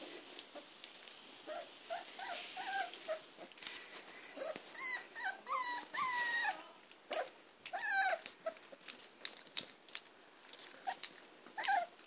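Greater Swiss Mountain Dog puppies whining and yipping as they play: short high-pitched cries that fall in pitch, several in quick succession in the middle and one more near the end, with small knocks and scuffles between them.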